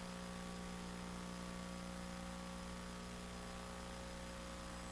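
Steady low electrical hum over a faint hiss, unchanging throughout.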